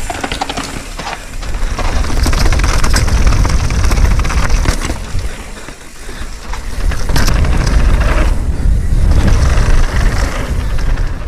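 Mountain bike descending a rough, technical trail: heavy wind rumble on the mic with a constant clatter of tyres, chain and frame over rocks and roots.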